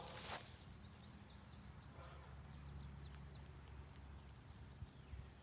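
Quiet outdoor ambience under a steady low hum, with faint, scattered high-pitched chirps in the first couple of seconds. A brief rustling noise comes right at the start.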